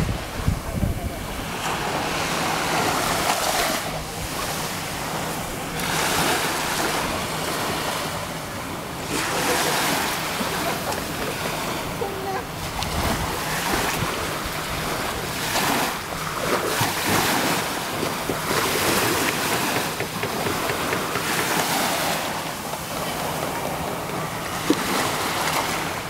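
Small sea waves lapping and washing up on a sandy beach, the hiss of the surf swelling and falling every few seconds, with some wind on the microphone.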